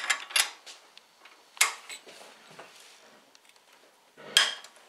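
Wrench and socket clinking on the camshaft gear bolts of an Audi V6 as they are loosened: a few sharp metal clicks and clacks, the loudest about four seconds in.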